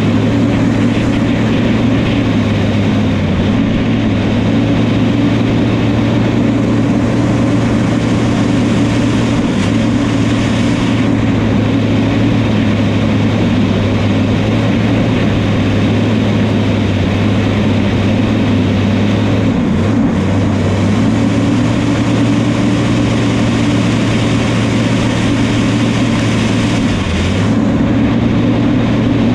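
Diesel engine of a New Holland crawler dozer running steadily at working speed, its pitch dipping briefly a few times as it takes load.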